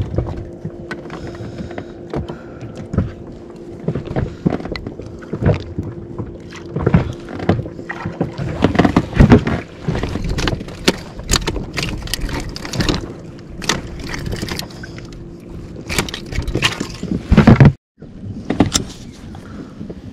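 Irregular knocks, thumps and rattles of handling aboard a small inflatable fishing boat, over a steady low hum. The sound cuts out for a moment near the end.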